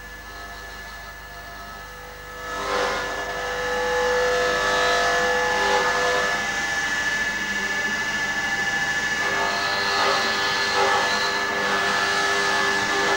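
Polishing lathe running, its spinning cloth buffing wheel working against a silver cup, with a steady motor whine over a rushing hiss. About two and a half seconds in the sound gets clearly louder and rougher.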